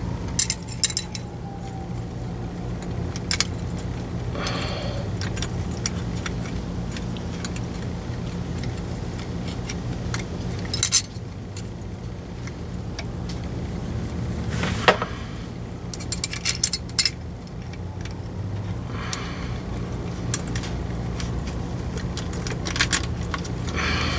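Small metal tools and parts clicking and clinking against a Jeep 44RE automatic transmission's valve body as it is worked on by hand, in scattered short clicks and quick clusters, over a steady low hum.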